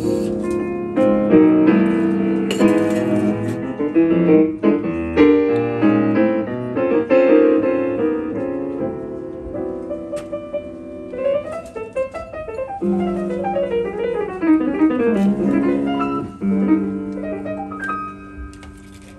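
Grand piano played in a jazz piece: full, dense chords, then a stretch of quick descending runs about two-thirds through, settling into sustained chords that grow softer near the end.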